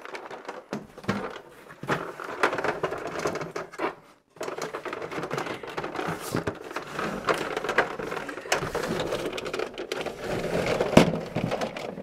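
A vintage Star Wars Imperial Shuttle toy being worked into its cardboard box: cardboard scraping and rustling with frequent small knocks of hard plastic against the box. The loudest is a single sharp knock near the end. The sound drops out briefly about four seconds in.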